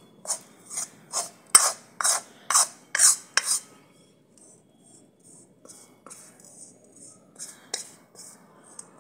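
A metal ladle scraping and stirring through rice flour and ghee in an iron kadai, mixing the ghee into the roasted flour. The strokes come about twice a second, loud at first, then softer in the middle, with a few more near the end.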